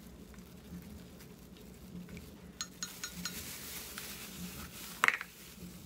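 Small clicks and clinks as a plastic jar of lanolin is handled and opened, with one sharp squeaky click about five seconds in.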